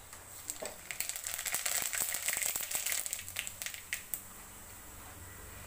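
Whole spice seeds crackling and sizzling in hot mustard oil in an aluminium kadai. The popping is thick for a couple of seconds, then thins out and stops about four seconds in.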